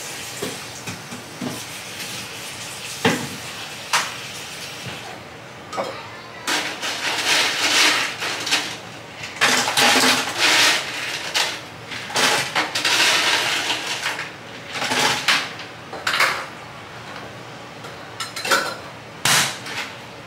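Small ice-maker cubes clattering into a plastic tumbler in several rattling bursts, after two sharp knocks.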